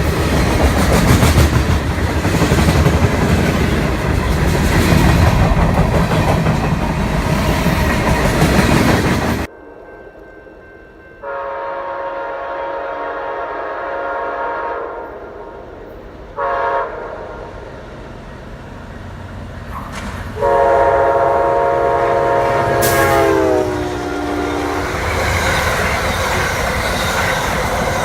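A train passing close with loud rumble and wheel clatter that cuts off abruptly. Then a locomotive's chime air horn sounds a long blast, a short blast and another long blast whose chord drops in pitch near its end, as the rumble of a train builds again.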